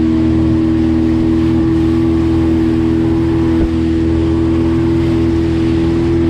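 Motorboat engine running at steady cruising speed, its pitch holding even, with a steady rush of water and wind as the boat planes across the lake.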